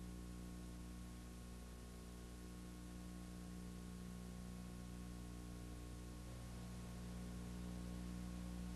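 Steady low electrical hum over an even hiss, the noise floor of a VHS tape transfer; the hum grows a little stronger about six seconds in.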